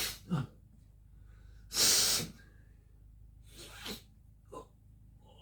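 A man's forceful breaths: a loud, sharp blast of air about two seconds in, like a cough or a hard exhale, with shorter puffs and breaths before and after it.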